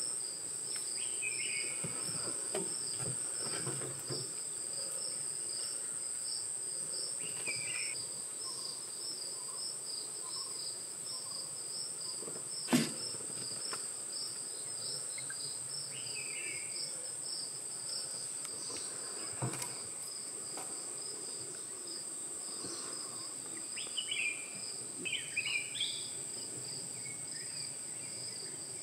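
Forest insects: a steady high-pitched buzz and a rapidly pulsing cricket chirp, joined by a few short, higher chirps here and there. A single sharp click about thirteen seconds in is the loudest sound, with a fainter one near twenty seconds.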